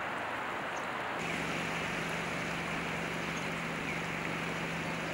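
Fast-flowing river floodwater rushing in a steady hiss. About a second in the sound changes and a steady low hum joins it.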